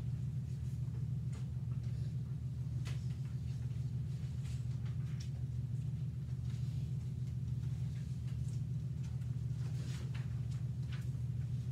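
Steady low room hum in a quiet classroom, with scattered faint clicks and rustles of paper and pencils.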